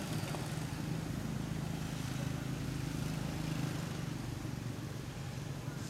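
A motor engine running steadily with a low hum.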